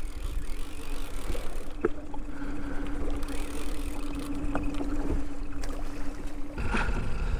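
A fishing boat running at trolling speed, with a low rumble of motor and wind. A steady hum cuts off suddenly about six and a half seconds in, and there are a few light clicks.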